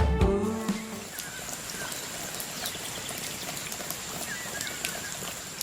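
Background music ends in the first second, leaving a steady, even hiss of ambience with a few faint, short high chirps.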